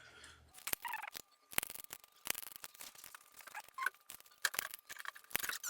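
Light metallic clicks and ticks, irregular and closely spaced, of spokes and spoke nipples being worked by hand on a freshly laced bicycle wheel as it is brought up to tension.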